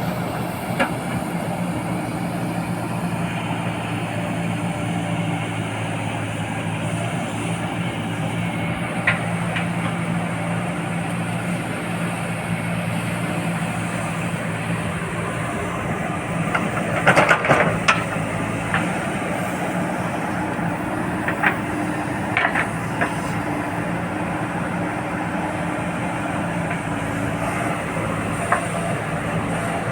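JCB 4DX backhoe loader's diesel engine running steadily at a constant pitch. A quick cluster of sharp knocks comes a little past halfway, with a few single knocks elsewhere.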